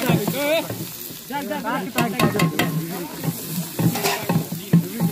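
A long wooden stick stirring mutton frying in a large aluminium pot, scraping along the metal, with the meat sizzling. A quick run of sharp knocks comes about two seconds in.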